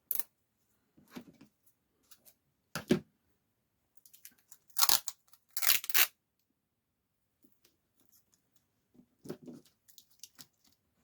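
Sellotape being pulled off the roll and torn in a series of short rasping strips, the two longest pulls about five and six seconds in.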